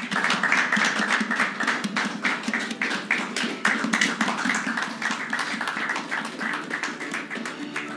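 A small group clapping in applause: a dense patter of handclaps that thins out toward the end.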